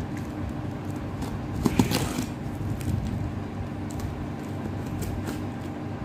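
Scissors snipping and scraping through packing tape on a cardboard parcel, with a few short crackly clicks, most clearly about two seconds in, over a steady low hum.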